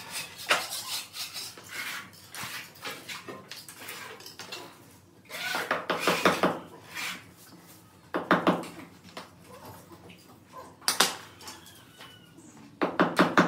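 Metal hand tools scraping and clinking on glazed ceramic floor tiles, in irregular bursts of scrapes and taps.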